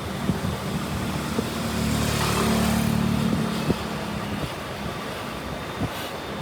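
Motor vehicle engine hum with road and wind noise. It swells to its loudest about two and a half seconds in, then eases off after about four seconds, with a few light knocks scattered through it.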